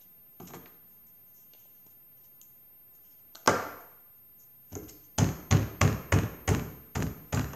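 Plastic toy capsule from a surprise egg being worked open and knocked against a wooden table: one sharp snap, then a quick run of about seven hard knocks, roughly three a second.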